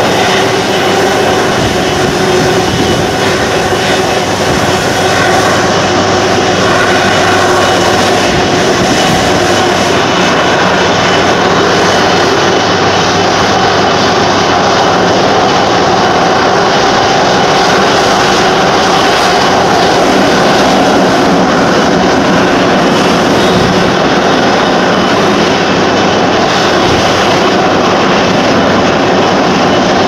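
Twin turbofan engines of an Airbus A330 running at low taxi power as the airliner rolls toward its stand: a loud, steady jet whine and roar.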